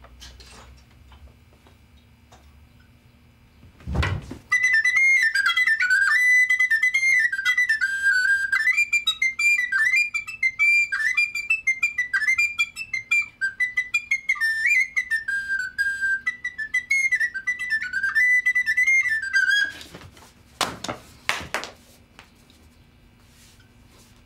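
Flute played fast in its high register: a quick run of notes wandering up and down that starts about four seconds in, right after a thump, and stops a few seconds before the end. A couple of knocks follow.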